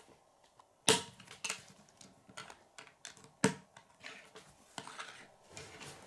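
Plastic Lego bricks clicking and clattering as they are picked up and pressed onto Lego plates on a wooden tabletop: two sharp clicks, about a second in and about three and a half seconds in, with smaller scattered clicks between.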